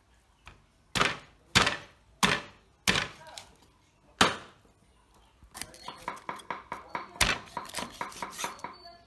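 Meat cleaver chopping through a snakehead fish into a round wooden chopping block: four heavy chops about two-thirds of a second apart, a fifth after a short pause, then a quicker run of lighter blade strokes on the fish, about five a second.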